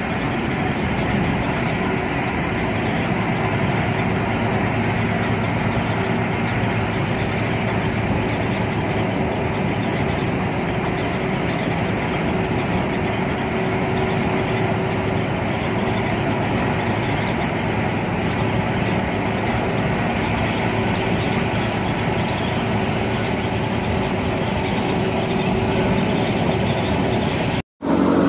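Steady engine drone and road rumble heard inside a coach cruising on a highway. The sound drops out abruptly for an instant near the end.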